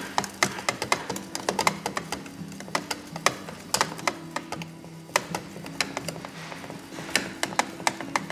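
Wire whisk clicking and tapping against a glass dish as pancake batter is beaten, in quick irregular strokes, over background music.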